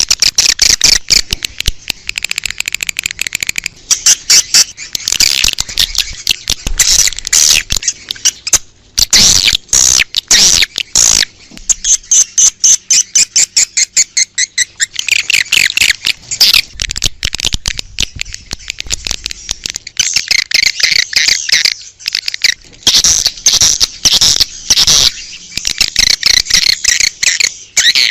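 Swiftlets chattering: dense runs of rapid, high, buzzy clicks and trills that stop and start every second or two. This is a swiftlet lure call of the kind played outdoors to draw swiftlets to a nest house.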